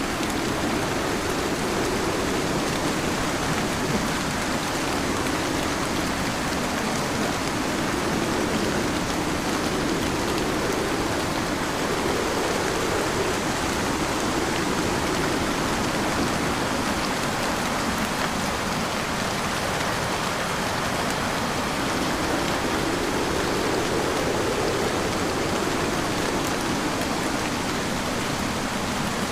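Heavy rain pouring steadily, with a low hum underneath that swells and eases every few seconds.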